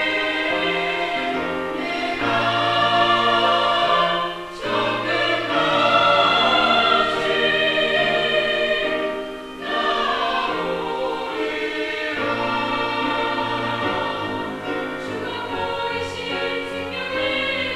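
Mixed church choir of men and women singing a sacred anthem in parts, with brief breaks between phrases about 4.5 and 9.5 seconds in.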